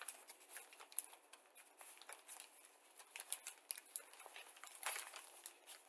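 Faint crinkling and rustling of a clear plastic bag being handled: a scatter of soft crackles and clicks.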